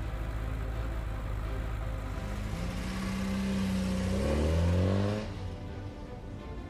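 Police car engine running steadily, then revving and accelerating away, its pitch climbing in steps to a peak about four to five seconds in before fading.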